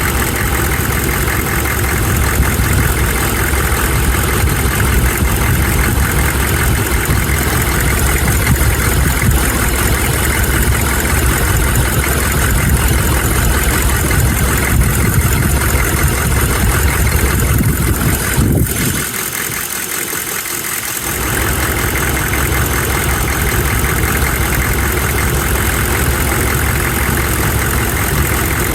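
GM 6.5L turbodiesel V8 idling steadily with a tapping or knock at idle. After a click about two-thirds of the way through, the deep engine sound drops away for about two seconds, then returns.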